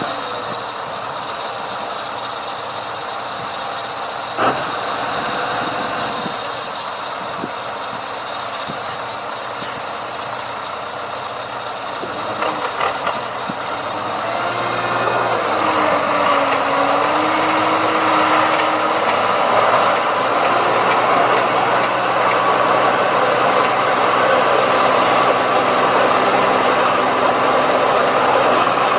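Heavy diesel machine engine running steadily, with one sharp knock about four seconds in. From about halfway the engine speeds up and grows louder, its pitch wavering briefly.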